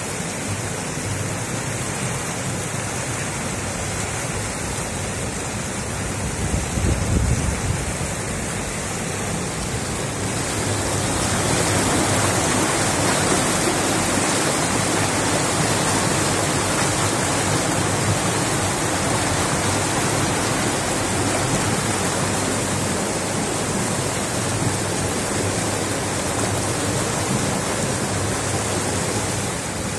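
Rushing of a flooded river: fast, muddy floodwater churning in standing waves, a steady noise that grows louder and brighter about ten seconds in. A brief low rumble comes around seven seconds in.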